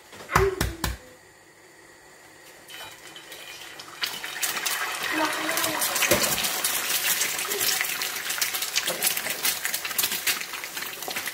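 A few sharp knocks near the start, then an egg frying in hot oil in a flat frying pan: steady sizzling and crackling that sets in about four seconds in.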